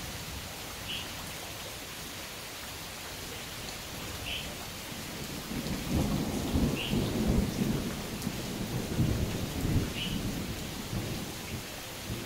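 Steady rain, with a low rumble of thunder rolling in about halfway through and lasting about four seconds. A faint, short, high chirp repeats about every three seconds.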